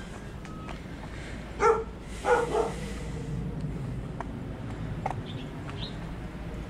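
A dog barking twice, about half a second apart, some two seconds in.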